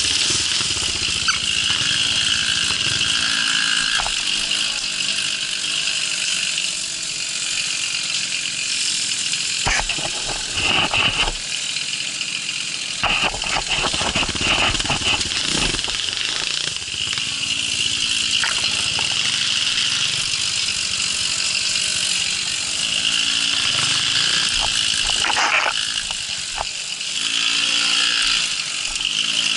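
Babetta moped's small two-stroke engine running under way off-road, its pitch rising and falling with the throttle, with a steady high squeal. Clusters of knocks and rattles come between about a third and halfway through.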